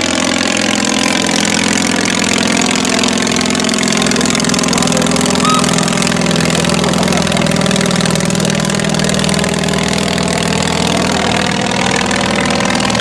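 The English Electric Wren's small ABC flat-twin piston engine running steadily in flight. Its pitch sags slightly in the middle and rises again near the end.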